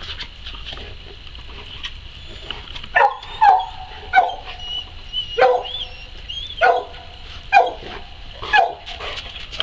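A dog barking about seven times, starting about three seconds in, roughly once a second, each bark sharp and dropping in pitch. It is impatient barking for the ball to be thrown.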